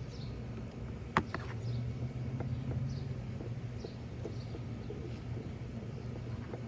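Hands digging and scraping through hard-packed soil: scattered light ticks and crunches, with one sharp click about a second in. Underneath are a steady low hum and faint bird chirps.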